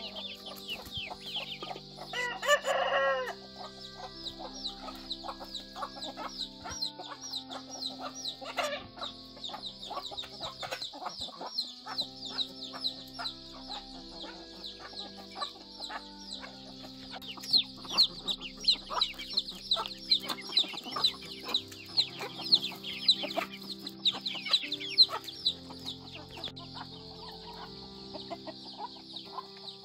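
Chickens clucking, with a rooster crowing once about two seconds in, the loudest sound, and rapid high chirps throughout.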